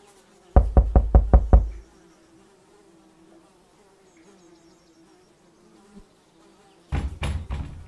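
Knocking on a door: a quick run of about six loud knocks half a second in, then another run of knocks near the end. In between, flies buzz faintly.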